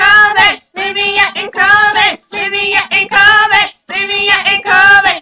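A child's high voice singing in a run of about six short, loud phrases with brief breaks between them.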